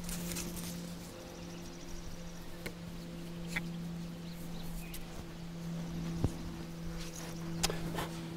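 A few light clicks and rustles of wood and dry grass as a bow drill kit (elderberry spindle and fireboard, bow strung with a bootlace) is handled and set in place, over a steady low hum.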